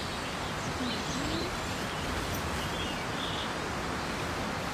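Outdoor ambience: a steady background hiss with a few short, faint bird chirps scattered through it.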